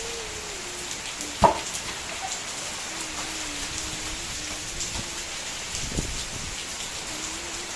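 Steady rain falling, with scattered drips and a single sharp knock about a second and a half in. A faint wavering low tone runs underneath.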